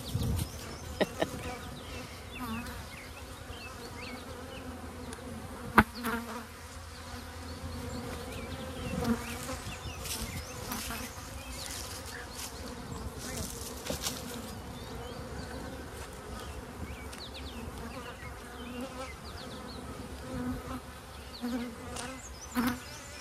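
Honey bees buzzing in a steady hum around an open hive as a frame thick with bees is lifted out. A few light clicks and one sharp knock about six seconds in.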